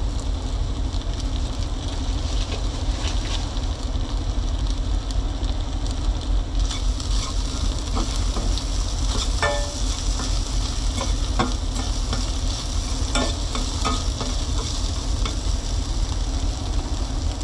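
Food sizzling in a small pot of stir-fried vegetables and meat, with the clicks and scrapes of a utensil stirring in the pot from about halfway through, over a steady low hum.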